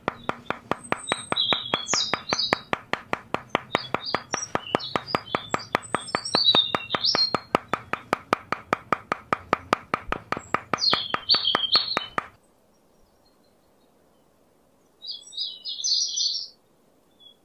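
Small birds chirping over a fast, even clicking. The clicking and chirping stop abruptly about twelve seconds in, and one short burst of chirps follows near the end.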